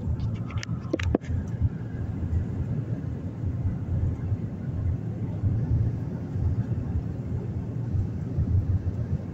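Steady low road rumble of a moving car heard from inside the cabin, with a few short clicks about a second in.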